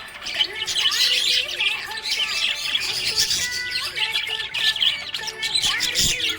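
A group of budgerigars chirping and warbling in dense, overlapping short chirps and squawks, without a break.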